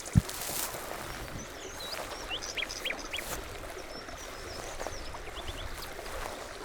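Small birds chirping, many short quick notes through the whole stretch, with one sharp low thump a moment after the start.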